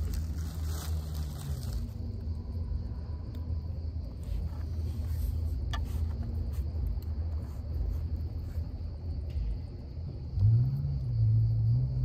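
Wind buffeting the microphone as a steady low rumble, with a plastic bag rustling for the first two seconds and a single sharp click near the middle. About ten and a half seconds in, a louder low droning tone rises in pitch and then holds.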